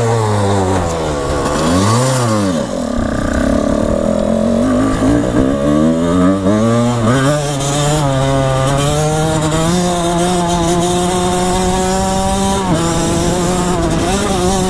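Two-stroke dirt bike engine being ridden: revving up and down for the first few seconds, then pulling up gradually to a steady higher speed, with a brief dip in revs near the end.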